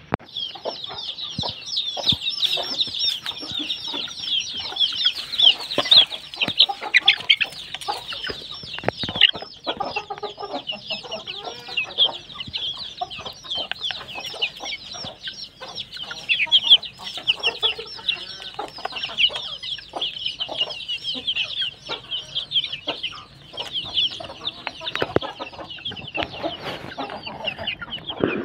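A flock of young chickens peeping over and over in short high chirps as they feed, with many sharp taps of beaks pecking mash from a plastic plate.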